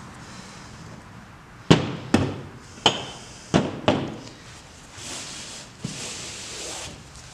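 About five sharp knocks and clatters as carburetor parts are handled and set down on a plastic folding table. After that, a rag is rubbed back and forth across the tabletop for about two seconds.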